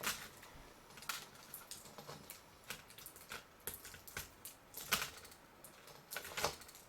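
Scattered light clicks and taps of metal tools and small electronic parts being handled while a laptop motherboard is picked apart, with a slightly louder click about five seconds in.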